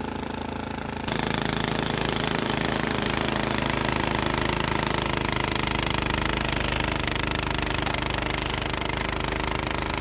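Toro Power Max 828 two-stage snowblower running under load, its engine steady while the auger and impeller chew through and throw a bank of heavy, wet snow. It gets suddenly louder about a second in and stays so.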